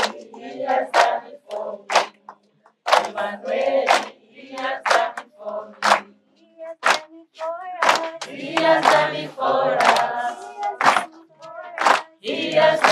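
A group of voices singing a worship song together, clapping along about once a second.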